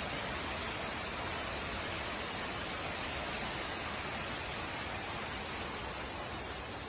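Floodwater rushing down a flight of stairs and across a tiled floor: a steady rushing hiss, easing a little near the end.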